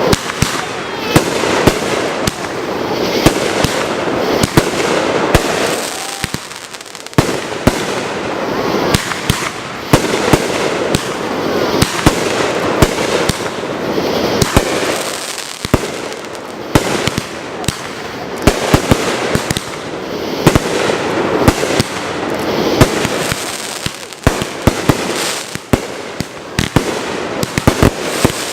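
Fireworks finale barrage: many sharp bangs a second, one on top of another, over a continuous crackle and hiss of bursting shells.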